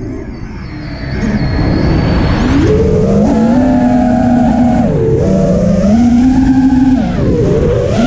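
FPV quadcopter's brushless motors and propellers whining in flight, over a low rushing noise. The pitch climbs steeply about three seconds in, dips briefly twice and comes back up, following the throttle.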